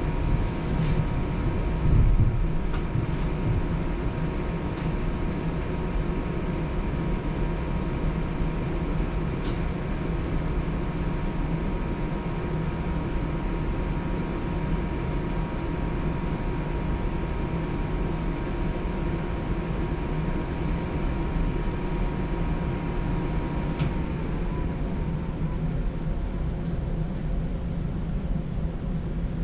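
TTC Flexity Outlook streetcar in motion, heard from on board: a steady running rumble with a whine of several steady tones, which dips slightly in pitch about three-quarters of the way through. There is one louder knock about 2 seconds in.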